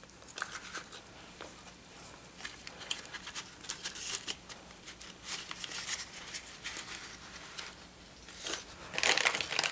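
Crinkling of foil-wrapped chocolates and a plastic candy bag being handled, with small taps and rustles of paper card stock as the candies are pushed into a paper box. The rustling grows louder and denser near the end.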